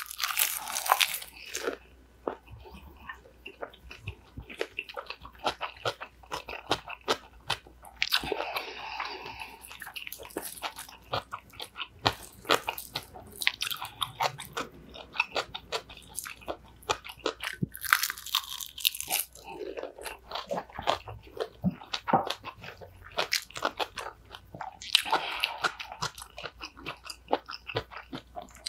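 Close-miked eating of cucumber bibimbap: steady wet chewing with crisp crunches from raw and pickled cucumber. Louder crunchy bites come a few times: near the start, about 8 seconds in, around 18 seconds and again near the end.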